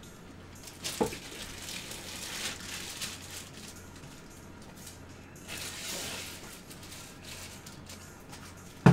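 Clear plastic wrapping around a baseball bat rustling and crinkling as the bat is handled and lifted. There is a knock about a second in, and a sharp, loudest knock right at the end.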